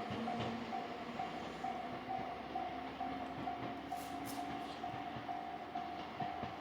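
Hokuriku Railroad 7000 series electric train running on the line, its motor hum slowly rising in pitch as it gathers speed. A level-crossing bell rings steadily about twice a second.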